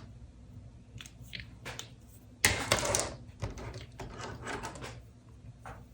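Pen strokes scratching on paper while drawing: a series of short scratches, with a longer, louder stroke about two and a half seconds in.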